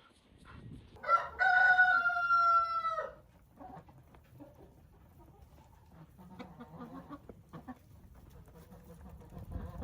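A rooster crowing once, a single held call of about two seconds that drops slightly in pitch at the end, followed by quieter hen clucking.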